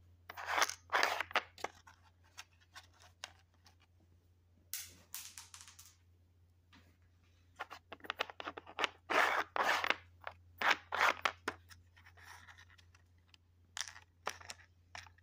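Hard plastic pieces of a cat treat puzzle being slid and rattled by hand: the ladybug-shaped cups are pushed back and forth in their tracks to drop a treat out. The sound comes in irregular bunches of quick scraping and clicking strokes, with short quiet gaps between.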